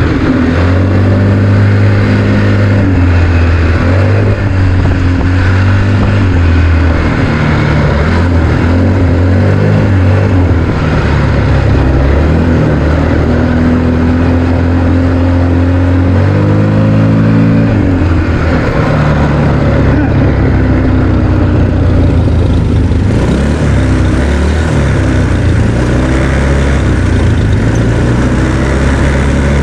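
ATV engine running while being ridden, its pitch rising and falling several times with the throttle.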